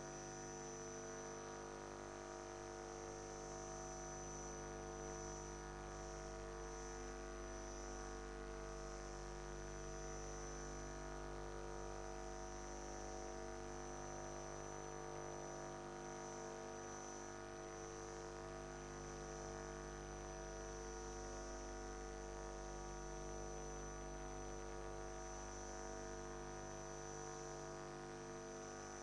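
Steady electrical hum and buzz with a thin high whine above it, unchanging throughout; no voices.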